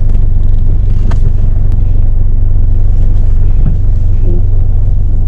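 Ford Mustang 2.3-litre turbo engine running with a steady low drone.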